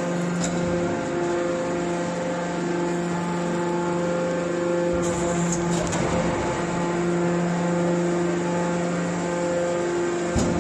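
Hydraulic metal-shavings baler running, its hydraulic power unit giving a steady, even-pitched hum, with a few brief clicks.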